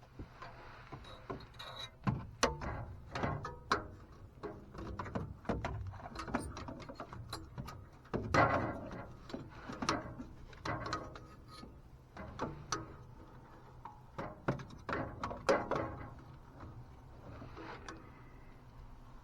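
Irregular metal clinks, knocks and scraping of hand tools working a broken starter bolt out of the engine block.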